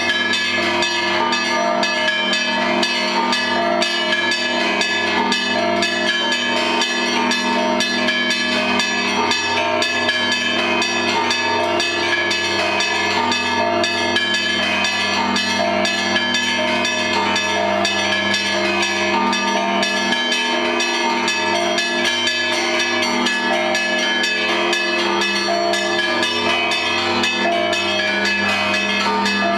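Russian Orthodox bells of the Pskov-Pechersky Monastery pealing together: many bells struck in a fast, unbroken pattern over the steady hum of the large low bells.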